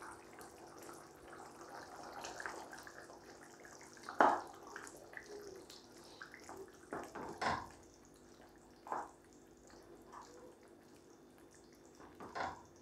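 Wooden spatula stirring ground coconut paste into a thin, liquid curry in a pan, with wet sloshing and a few short scrapes and knocks against the pan, the loudest about four seconds in and others near seven and a half, nine and twelve seconds. A faint steady hum runs underneath.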